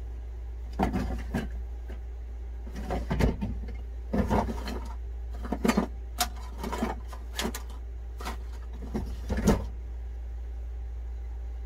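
Electrical tape being pulled off the roll and wrapped onto wiring in a series of short rips, about eight of them over several seconds, over a steady low hum.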